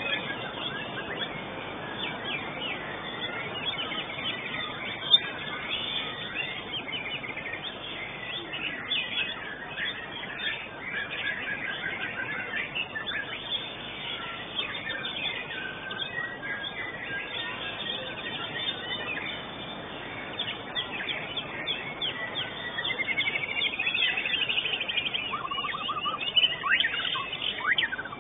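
White-rumped shama (murai batu) singing a varied run of chirps, quick trills and whistled phrases over steady background noise. One sharp tap about five seconds in.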